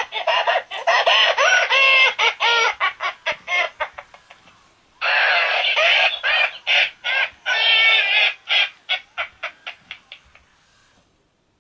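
Battery-powered plush toy cat rolling on the floor while its voice box plays rapid runs of short, chattering cries, about five a second. There are two bouts: the first fades out after a few seconds, and the second starts suddenly about five seconds in and trails off before the end.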